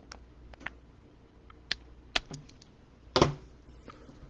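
Light, scattered clicks and taps of trading cards and plastic card sleeves being handled on a table, with a louder knock about three seconds in.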